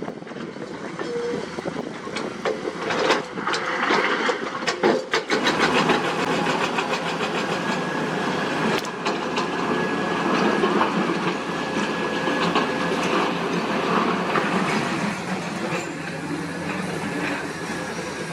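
Heavy earthmoving machinery working over limestone: a diesel engine runs steadily under load, with a run of metallic clanks and rattles about three to five seconds in.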